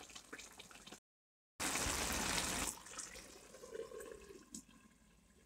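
Minced meat and onions simmering in water in a frying pan, a steady bubbling hiss for about a second, then fainter light clinks and a scrape as a glass lid goes on the pan.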